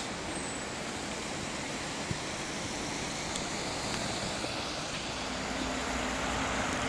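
Steady rushing of a mountain river in a gorge, an even noise with no break, with a couple of faint ticks.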